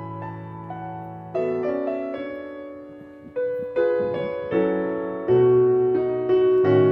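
Gentle background piano music: chords struck one after another, each left to ring and fade before the next.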